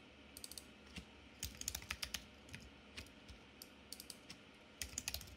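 Computer keyboard being typed on, keystrokes clicking in short irregular bursts with brief pauses between them.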